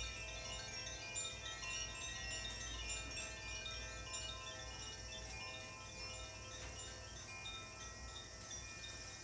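Tuned metal chimes being rung: many bright, high notes struck in quick succession and left ringing over one another in a shimmering wash.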